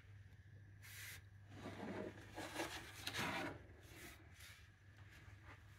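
Faint rubbing and scuffing handling noises, clustered about one to three and a half seconds in, over a faint steady low hum.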